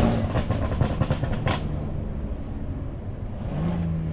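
Tuned BMW M3 Competition's twin-turbo straight-six coming off a rev, its Scorpion downpipe and catback exhaust popping and crackling on the overrun for about a second and a half. The engine then runs on steadily at a low note, which rises slightly again near the end.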